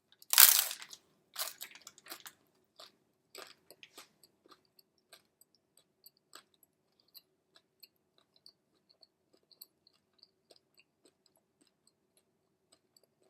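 A person biting into a hard-shell beef taco: one loud crunch about half a second in, then chewing with crunches that get fainter and sparser as the shell is eaten.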